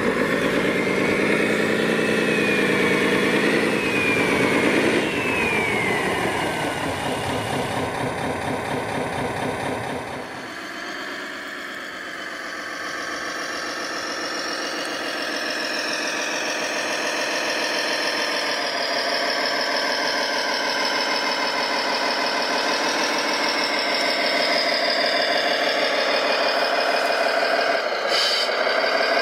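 Engine sound of radio-controlled model construction vehicles running, its pitch rising and falling. It eases off and thins out about ten seconds in, then runs on more steadily.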